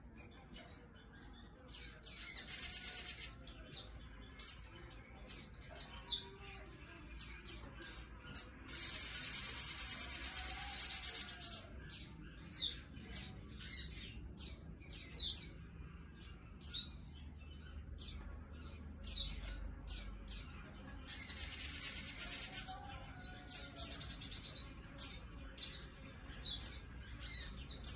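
A sogon bird calling in fighting mode: a run of sharp, high, down-slurred chirps, broken three times by long, loud, buzzy trills.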